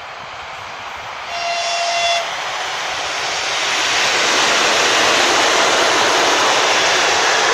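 A ChS7 electric locomotive hauling a passenger train approaches with a rising rush of wheel and rail noise. It gives one short horn blast about a second in, then passes close by, and the carriages' wheels run past in a loud, steady rush.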